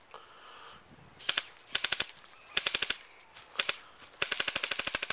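Airsoft guns firing in rapid bursts of sharp snapping shots, five bursts in all, the last and longest lasting about a second near the end.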